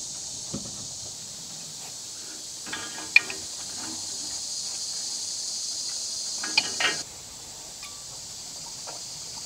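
Metal clinks and a ringing clank as pipe wrenches grip and turn an iron tee fitting on a gas pipe: one sharp clink about three seconds in, a short cluster near seven seconds. Insects buzz steadily behind, dropping off about seven seconds in.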